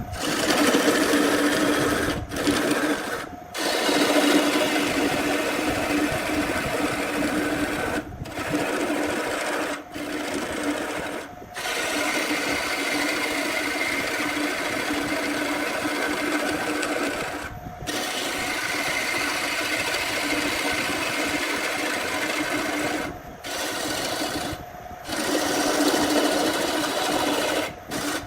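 A small electric power tool's motor running steadily, its work on the wood adding a rough hiss, broken by several brief sudden gaps.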